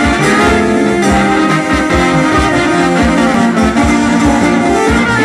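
Traditional Macedonian folk dance music: sustained melody instruments over a quick, steady drum beat of about four strokes a second.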